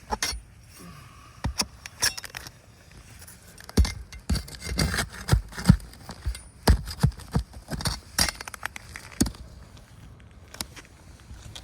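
Irregular scraping, clicks and knocks on asphalt roof shingles, with a cluster of sharper knocks in the middle.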